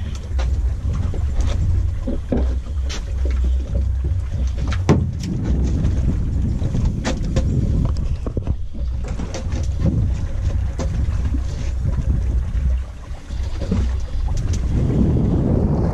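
Steady low rumble aboard a fishing boat at sea, with wind buffeting the microphone and scattered knocks and clicks from the boat and the tackle.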